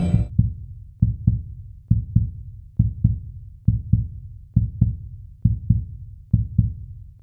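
Heartbeat sound effect: slow, steady lub-dub double thumps, a pair about every second, low and muffled.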